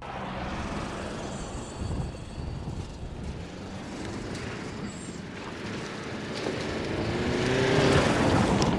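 Mercedes-Benz GLB 200 d 4MATIC's four-cylinder diesel engine pulling the SUV along a dirt track, with tyre noise on loose dirt. The engine note rises and the sound grows louder as the car comes close, loudest near the end.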